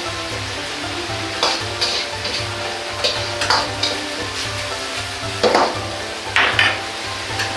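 Pork and vegetables sizzling in a carbon-steel Chinese wok while a metal ladle stirs them, with several sharp scrapes and clacks of the ladle against the wok.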